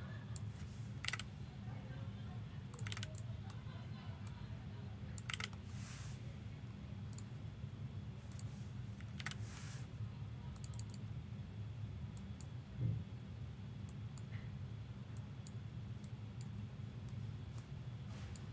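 Computer mouse and keyboard clicks, a few sharp ones, some in quick pairs, then lighter ticks, over a steady low electrical hum.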